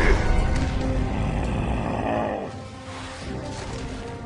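Background music with held notes, under a growl from the animated Hulk as he strains. The sound drops quieter about two and a half seconds in.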